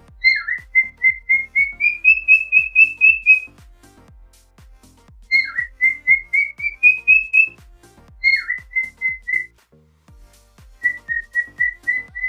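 A short whistled tune repeated four times, each time a downward slur followed by a run of quick, even notes that climb slightly in pitch, over a soft steady beat.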